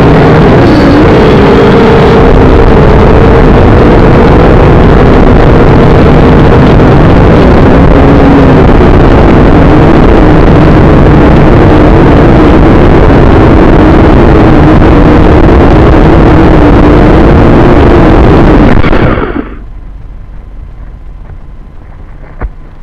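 Syma X5C quadcopter's small motors and propellers buzzing loudly as heard from its onboard camera, the whine wavering in pitch while it holds against the wind, with wind rushing over the microphone. About 19 seconds in, the motors wind down and cut out as the drone comes down in the grass, leaving a faint hiss and a single knock near the end.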